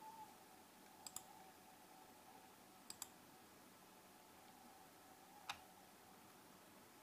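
Computer mouse button clicking: a quick double click about a second in, another double click around three seconds, and a single sharper click near the end, over near-silent room tone with a faint steady hum.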